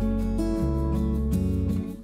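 Instrumental background music with guitar over a bass line, the notes changing every half second or so, dipping briefly just before the end.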